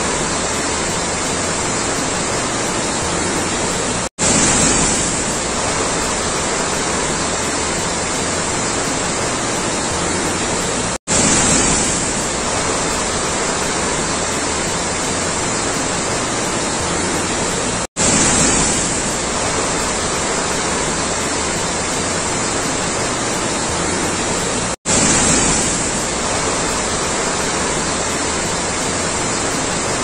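Steady rushing of a waterfall, a short recording looped about every seven seconds. At each seam the sound drops out for an instant and then swells briefly back in; this happens four times.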